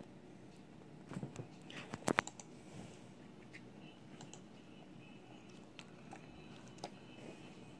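A quick cluster of computer mouse clicks and light taps, loudest about two seconds in, then a few scattered soft ticks.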